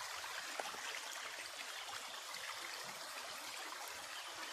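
Running water trickling steadily, an even flowing sound with no break.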